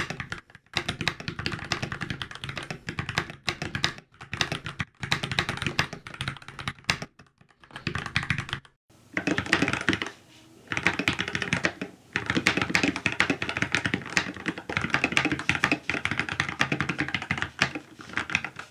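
Typing on a Keychron K14 mechanical keyboard with hot-swappable Gateron switches and ABS keycaps: rapid keystrokes in short bursts with brief pauses over the first half, then steady continuous typing.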